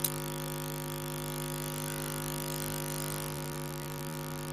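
Steady electrical hum and room tone, with a single brief click at the start.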